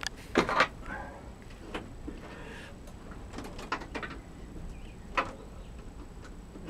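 Scattered light knocks and clicks: a pair just after the start, a cluster around the middle and one more later.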